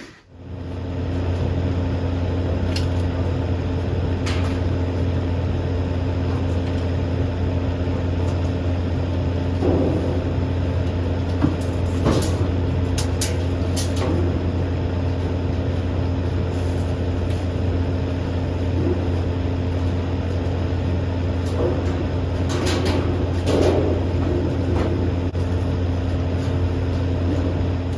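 A steady low mechanical drone, like a motor or engine running, with a few scattered knocks and clicks; it cuts in and cuts off suddenly.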